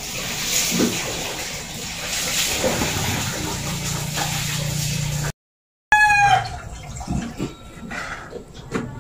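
A steady hiss that cuts off abruptly just past halfway. After a brief silence a rooster crows, its call falling in pitch, and a knife taps a few times on a plastic cutting board.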